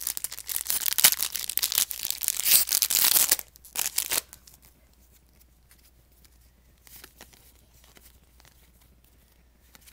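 A foil trading-card pack wrapper being torn open and crinkled for about three and a half seconds, with a couple of shorter crinkles just after. After that only faint handling clicks are heard.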